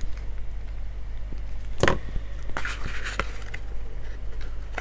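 Paper and card being handled at a craft desk: a single knock about two seconds in, then a brief crackly rustle of paper with a click as the card is pressed down by hand. A steady low hum runs underneath.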